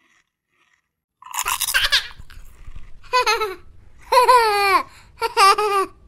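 A short slurping, chewing eating sound about a second and a half in, then four short, high-pitched baby-like giggles with bending pitch, the sounds given to a baby doll being fed spaghetti.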